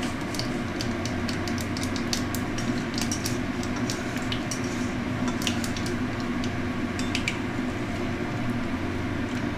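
Dried red chilli and nigella seeds frying in hot mustard oil in an iron kadai: a sizzle with many scattered sharp crackles and ticks, plus a metal spatula stirring and tapping the pan. A steady low hum runs underneath.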